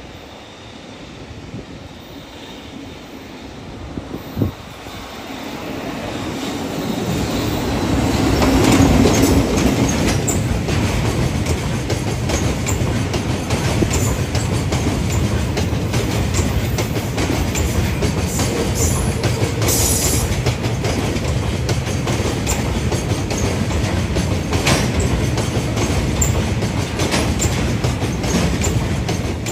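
A JR Freight EF65 electric locomotive runs through at close range, followed by a long train of Taki 1000 oil tank wagons rolling past. The sound builds over the first eight seconds or so as the locomotive arrives. The wagons then keep up a steady rumble, with their wheels clicking rhythmically over the rail joints.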